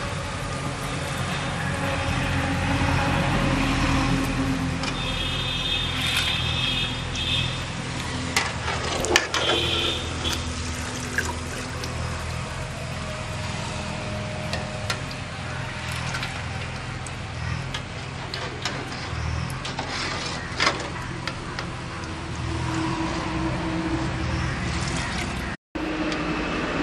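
Boondi, drops of gram-flour batter, deep-frying in hot oil in a kadai: a steady sizzle. A metal perforated skimmer clinks against the pans now and then.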